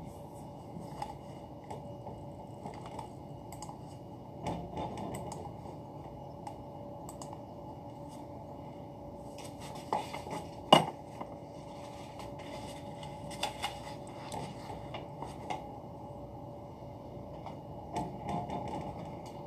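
Desk work: papers handled and scattered small clicks and knocks, with one sharp knock about eleven seconds in, then typing on a computer keyboard near the end, over a steady faint hum.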